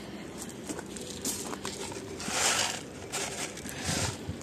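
Blue bait granules shaken out of a small packet in a few short bursts, pattering onto the soil and plastic mulch fabric. The longest shake comes about halfway through.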